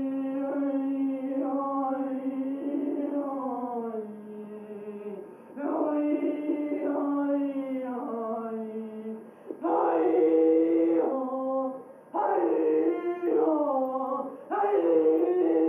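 A single voice singing wordless, long-held notes in five phrases with short pauses between them. Several notes slide down in pitch at their ends, and the phrases after about ten seconds in are louder.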